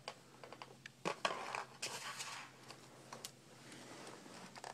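Faint, irregular clicks and short scraping rustles of a loose laptop LCD panel and its plastic frame being handled, a little louder about a second and two seconds in.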